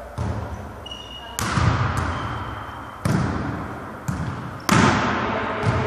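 A volleyball struck about four times in a rally, a second or so apart, each sharp hit ringing out with a long echo in a large gym hall. Brief high squeaks of shoes on the court floor come between the first hits.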